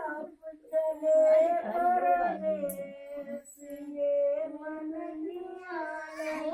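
Women singing a traditional wedding song unaccompanied, in long held notes that slide between pitches.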